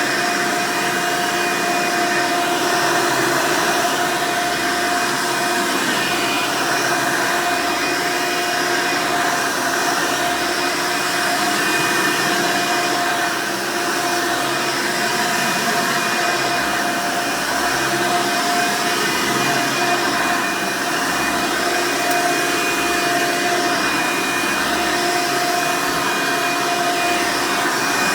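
Hoover Elite upright vacuum cleaner running steadily, a constant motor whine over the rush of air.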